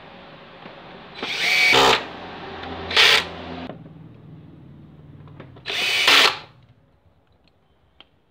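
Cordless drill-driver whirring in three short runs: about a second in, again at three seconds, and near six seconds. A steady low hum and hiss lies under the first half and fades out about four seconds in.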